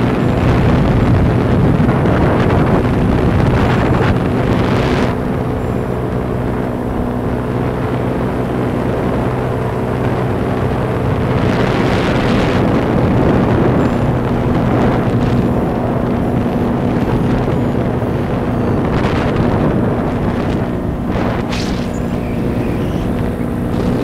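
Powered paraglider's backpack engine and propeller running steadily in flight, a constant droning hum, with wind buffeting the microphone in a few brief gusts.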